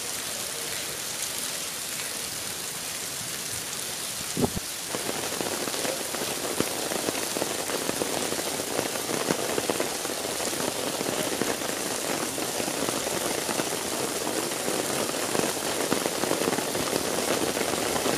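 Steady rain falling, growing a little heavier with denser pattering from about five seconds in. There is a single dull thump about four seconds in.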